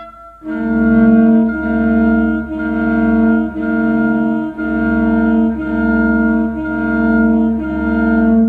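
Instrumental music: sustained chords that change about once a second over a low bass note.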